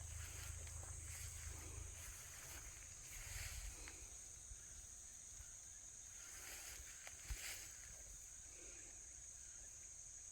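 Steady high-pitched droning of insects, with a low rumble during the first two seconds.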